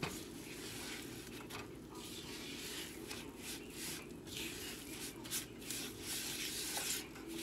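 Silicone spatula stirring and scraping a grainy butter-and-sugar mixture around a nonstick frying pan: a continuous rubbing, scraping sound. The mixture is kept moving so it does not sit and stick.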